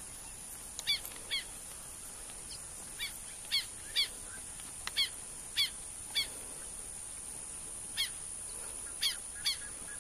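A bird calling repeatedly: about a dozen short, harsh calls at uneven intervals, over a steady high hiss.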